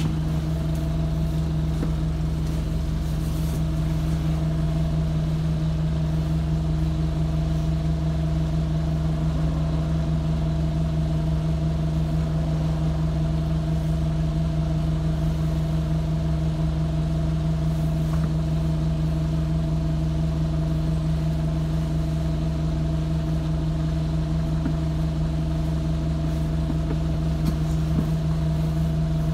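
Bus engine idling, a steady unchanging hum heard from inside the passenger saloon.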